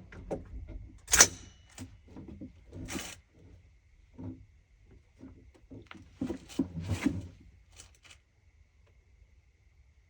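A series of irregular clicks and knocks from handling. The sharpest comes about a second in, with further clusters around three seconds and six to seven seconds in.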